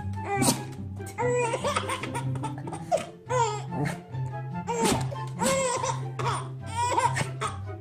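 A baby laughing hard in repeated high-pitched bouts, over a background music track with a steady bass line.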